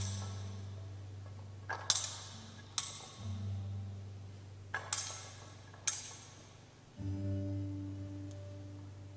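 Instrumental church music: a deep sustained bass note comes in three times, a few seconds apart, with sharp percussive strikes between them.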